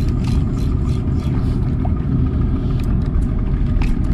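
A fishing boat's engine running steadily as a low rumble, with wind buffeting the microphone and scattered light clicks.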